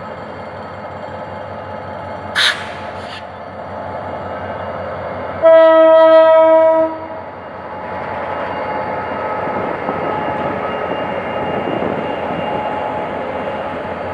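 GM GT22CW-2 diesel-electric locomotive pulling a passenger train away: a short hiss about two and a half seconds in, then one horn blast of about a second and a half near the middle, the loudest sound. After it the engine and the wheels on the rails grow louder as the locomotive and then the coaches roll past.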